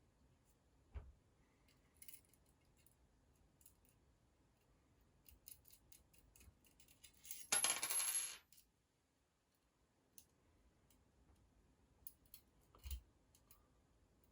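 Small metal construction-set parts clinking: faint scattered clicks of handling, and about halfway through a second-long jingling rattle of loose metal pieces such as nuts and bolts.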